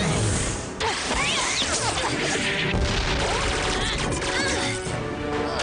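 Cartoon action music mixed with crash sound effects, full of short sliding pitches; the sound drops out briefly about a second in.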